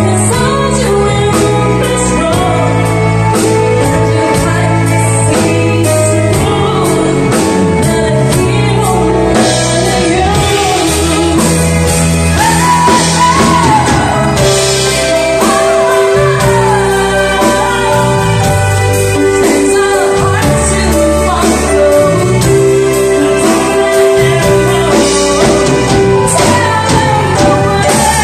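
Live band playing a pop-rock song: a woman sings lead over a drum kit keeping a steady beat and an electric bass.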